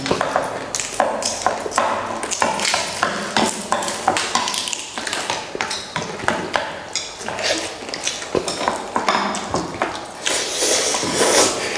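Spoons and chopsticks clinking and stirring against bowls as two people eat instant noodles at speed: many short, irregular clinks and clicks.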